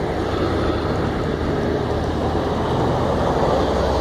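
Engine and road noise of heavy vehicles driving past close by, a bus among them, growing a little louder near the end as the bus comes alongside.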